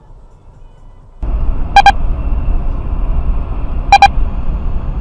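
Steady road and engine rumble heard inside a moving car, jumping louder about a second in. Over it a short double electronic beep sounds twice, about two seconds apart, and a faint high steady whine runs alongside.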